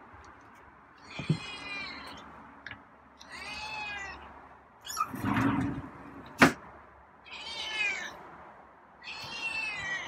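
Long-haired feral cat meowing four times, each meow rising and falling in pitch, as it waits at its empty dish for food. A short rough rustle and one sharp knock come between the second and third meows; the knock is the loudest sound.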